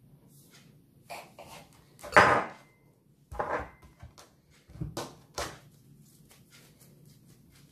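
A knife cutting stiff dough on a hard kitchen countertop, with pieces of dough handled and set down on it. It gives a handful of short knocks and taps, the loudest about two seconds in.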